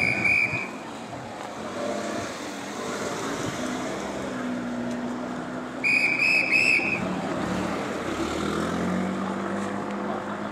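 A whistle blown in short trilled blasts, once at the start and again about six seconds in, over the chatter of a crowd.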